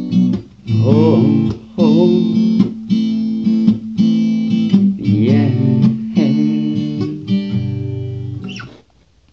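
Acoustic guitar strumming blues chords as the closing bars of a song; a final chord rings out and dies away near the end.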